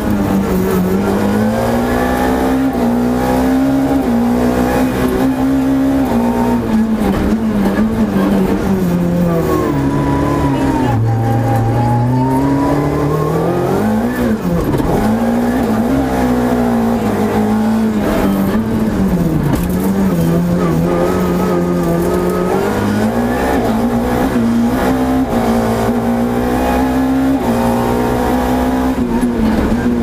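Renault Clio FA7 rally car heard on board at full attack: the engine revs hard and climbs through the gears, dropping in pitch at each shift. About ten seconds in it slows to a low note, then dips sharply and picks up again, and it revs steadily higher near the end.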